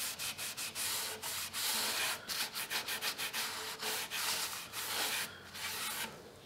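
Cloth pad rubbed briskly back and forth over the old shellac finish of a wooden chest lid, a scratchy hiss of about three strokes a second that stops a little before the end.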